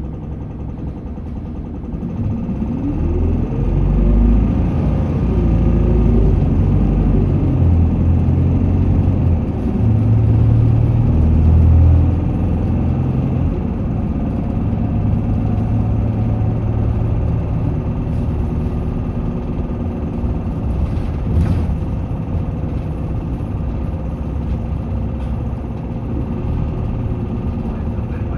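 A 2020 Isuzu Erga city bus, heard from inside the cabin, pulling away from a standstill about two seconds in: the diesel engine revs up through the gears, then the bus runs on at a steady speed with engine and road noise.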